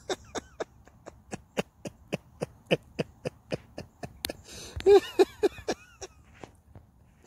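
A man's breathy laughter: a quick run of short puffed snickers, about three to four a second, breaking into a few voiced chuckles about five seconds in.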